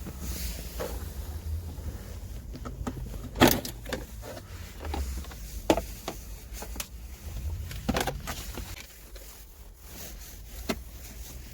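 Scattered clicks and knocks of hands working on a car's interior during an electrical repair, over a low rumble; the loudest knock comes about three and a half seconds in.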